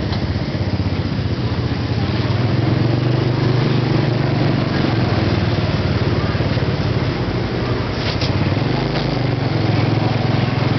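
Small motorcycle engine running steadily while riding in traffic, heard from the pillion seat with road and wind noise. Its low hum swells a little a couple of seconds in and shifts briefly about nine seconds in.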